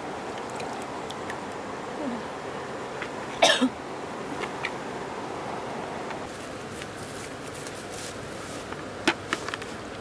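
Steady rush of moving water, broken by two short, sharp sounds: a loud one about three and a half seconds in and a smaller one near the end.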